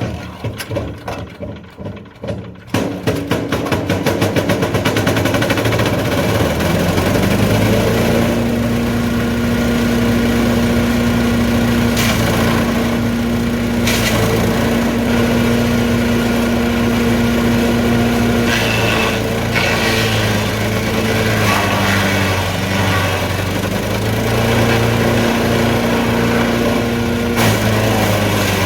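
Champion 338cc chipper shredder's single-cylinder engine starting up: uneven at first, catching after about three seconds and settling into a steady run. Over it come two sharp cracks, about two seconds apart, and later some rougher stretches as wood is fed through and chipped.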